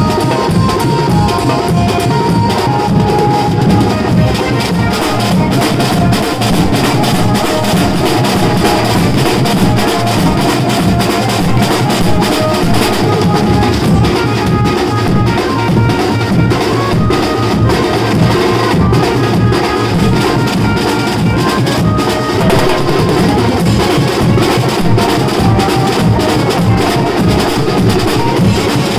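A band drummer beating timbale-style drums, a snare drum and a cymbal with sticks in fast, continuous rhythms. Other drums and a melody line play along.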